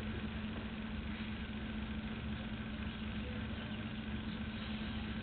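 Steady room hum: a constant low tone over an even background hiss, with no distinct events.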